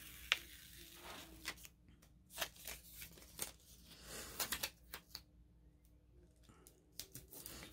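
Faint rustling of paper and sticker sheets being handled, with soft taps and clicks, as a large paper sticker is peeled from its backing sheet and laid onto wax paper.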